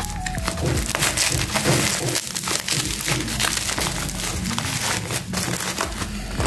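Plastic bubble wrap crinkling and crackling as it is cut with a utility knife and pulled off a package by hand.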